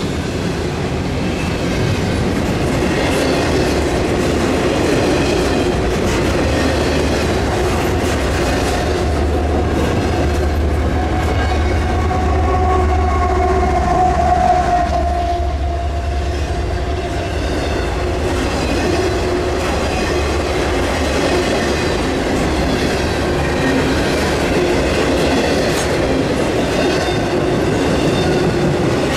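A CSX freight train's cars rolling past, a steady clickety-clack over a deep rumble, with a brief squeal about halfway through.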